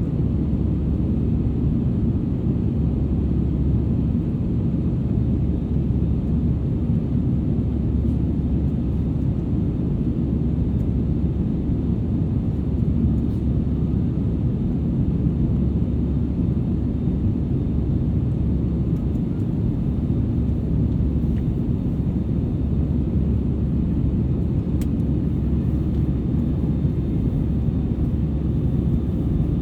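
Steady low rumble of jet engine and airflow noise inside the rear cabin of an Airbus A320-200ceo airliner.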